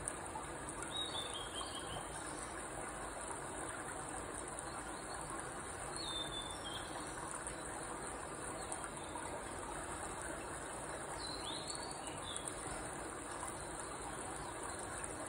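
Steady, high insect chorus with a bird giving a short, falling chirped call three times, about five seconds apart, over a background hiss.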